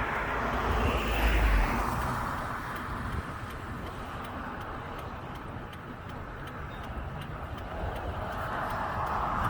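Steady road and wind noise inside a moving vehicle, swelling about a second in and again near the end, with faint, evenly spaced ticking throughout.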